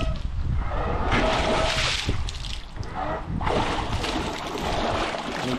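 Propeller of a 3 kW electric outboard churning and splashing water in a barrel, with a faint motor whine. The churning swells, drops away about halfway through and swells again: the motor only goes up to a certain point before falling back, the power fault the owner is testing for.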